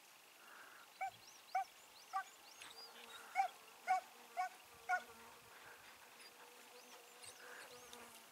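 A hunting hound yelping: seven short, high yelps between about one and five seconds in. Faint bird chirps and a steady insect hum sound underneath.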